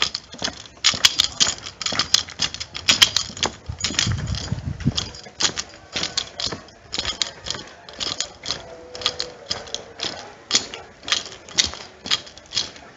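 Footsteps of people walking on an asphalt lane: a quick, irregular run of sharp scuffing clicks, with a brief low rumble about four seconds in.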